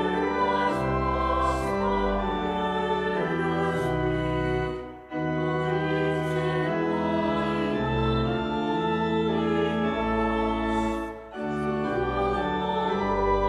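A hymn sung with church organ accompaniment, held chords moving every second or so, with short breaks between lines about five and eleven seconds in.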